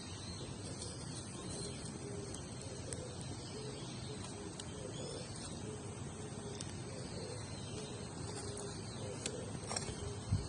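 Quiet outdoor ambience around a burning campfire: a steady hiss with scattered small pops and ticks from the fire and faint bird calls. A soft knock near the end.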